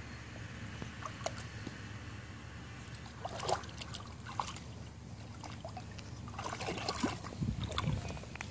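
A small dog wading and pawing at shallow pool water, splashing in irregular short bursts, busiest near the end, over a steady low hum.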